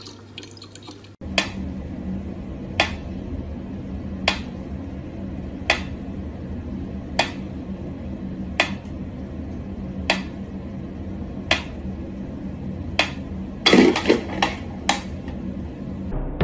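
Mechanical pyramid metronome ticking slowly, one sharp tick about every second and a half, over a low steady hum. Near the end comes a quick run of louder knocks.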